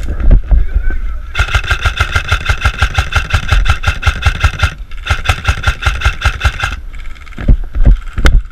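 Airsoft electric gun firing two long full-auto bursts: a rapid, even string of shots over the whine of its gearbox motor. The first burst runs about three seconds, and the second, shorter one follows after a brief pause.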